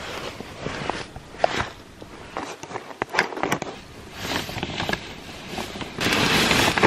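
Rustling and handling of nylon snowmobile clothing and bedding, with scattered small clicks and crinkles. About six seconds in, a steadier, louder hiss of wind on the microphone comes in.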